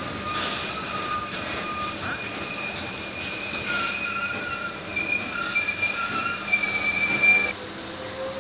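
Freight train of hopper wagons rolling past, its wheels squealing in several shifting high tones over a steady rolling rumble. The squeal cuts off suddenly near the end.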